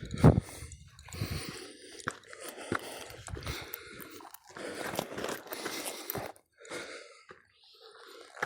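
Footsteps crunching unevenly on a dirt and gravel trail while climbing, with the walker's hard breathing.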